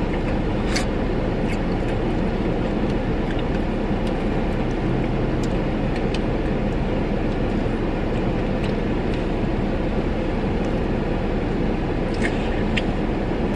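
Steady road and engine noise heard inside a moving car's cabin.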